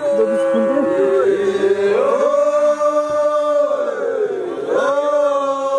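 A group of voices chanting a song, several pitches sounding together in long held notes that slide between phrases: Samburu wedding singing.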